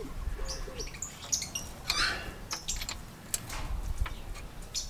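Scattered light metallic clicks and taps of a hand tool on a car's gear shift linkage, with birds calling faintly in the background.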